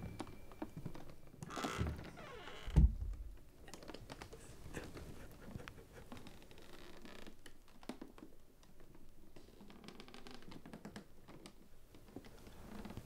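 Film soundtrack sound effects: faint scattered clicks and scratches, with a short hissing swell about a second and a half in and a deep thud just before three seconds in, the loudest moment.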